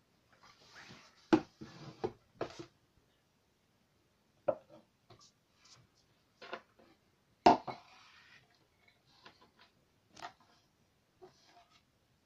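Spoon stirring thick, foamy slime in a bowl: soft squishing with scattered clicks and knocks of the spoon against the bowl, the loudest about a second and a half in and about seven and a half seconds in.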